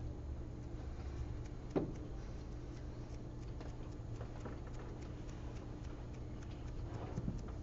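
Faint, irregular light ticks and taps from a paintbrush dabbing rust tones onto a small painted test panel, with one louder knock about two seconds in, over a steady low room hum.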